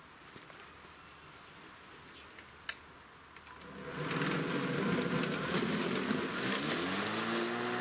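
Echo DLM-310/46P cordless battery lawn mower starting up about halfway through and running with a steady electric whirr from its motor and blade, its pitch shifting near the end as it is pushed. Before it starts there is only a quiet stretch with one sharp click.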